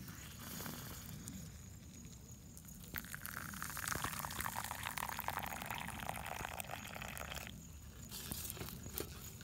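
Tea poured from a kettle into a paper cup: a stream of liquid starting about three seconds in and running for about four and a half seconds, its pitch sinking slightly. A wood campfire crackles throughout.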